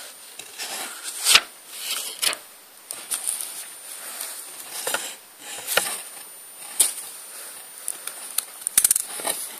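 A small compact digital camera being handled: rustling with scattered sharp clicks and knocks, and a quick run of clicks near the end.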